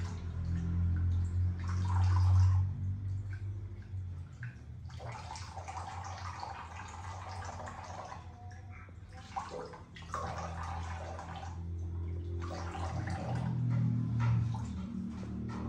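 Tap water running into a bathroom washbasin, with splashing in several bursts of a second or more as a washcloth is wetted and rubbed over a small monkey's face and then rinsed under the tap.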